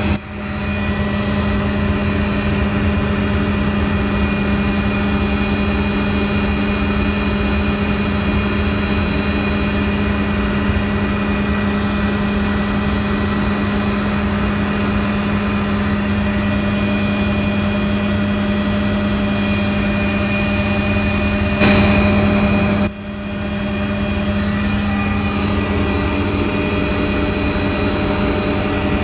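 Tour helicopter running in flight, a loud, steady drone with a constant hum. Near the end it briefly gets louder, then cuts out sharply and comes back.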